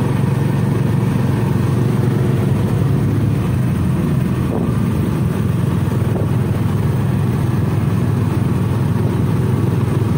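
Motor vehicle engine running steadily with road noise, heard from on board while riding along.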